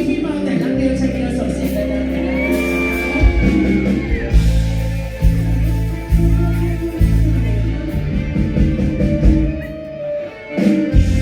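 Live band music in a bar, a singer over amplified instruments with a strong bass line that changes note about once a second.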